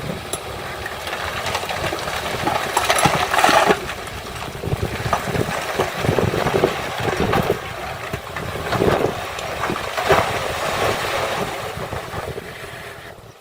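Diesel engine of heavy earthmoving machinery running and working under varying load, with louder surges a few seconds in and again about three quarters through.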